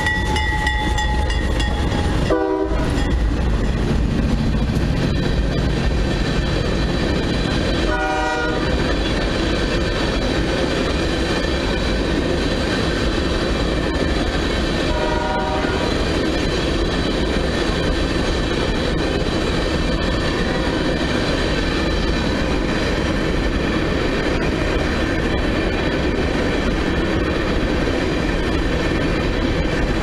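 Horn of a CSX C40-8W (GE Dash 8-40CW) diesel locomotive ending its blast about a second in, then the locomotives and a long freight train of tank cars and covered hoppers passing close by: a steady rumble with wheel clatter on the rails.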